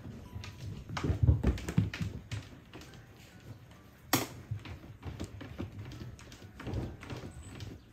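Cat scratching and digging in granular litter inside a plastic litter box: an irregular patter of scratchy clicks and rustles, with a few heavier low thumps about a second in and one sharp click about four seconds in.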